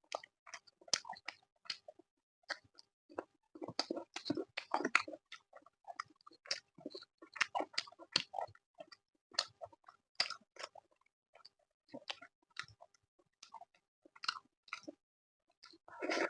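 Close-miked chewing and biting of food, chicken curry with rice and naan, in irregular wet, smacking strokes several times a second, with busier bursts now and then.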